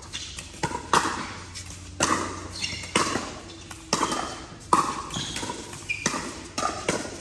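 Pickleball paddles hitting the plastic ball back and forth in a rally: sharp pops, one or two a second.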